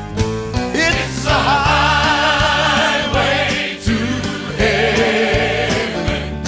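Gospel choir singing long, wavering notes over a band with piano and drums. The voices come in about a second in after a keyboard lead-in and break briefly near the middle.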